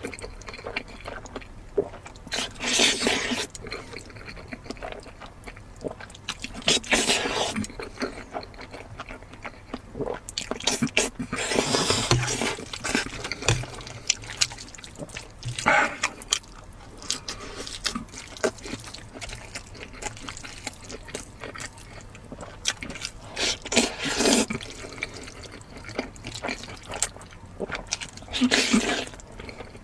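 Close-miked mukbang eating of spicy lamb: wet chewing, sucking and lip-smacking sounds that come in short bursts every few seconds.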